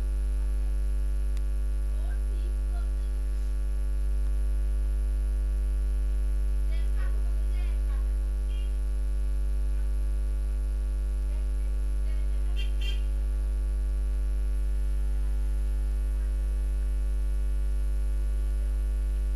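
Steady electrical mains hum: a deep 50 Hz drone with a ladder of fainter higher tones above it, unchanging throughout.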